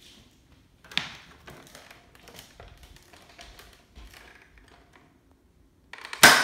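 Light clicks and rattles of a Nerf Raptorstrike bolt-action blaster being handled, then near the end a single loud, sharp crack with a ringing tail as the blaster fires on its stiff 9 kg replacement spring.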